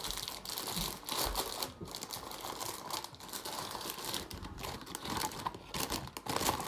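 Plastic wrapping crinkling and rustling as it is handled, with many short irregular crackles.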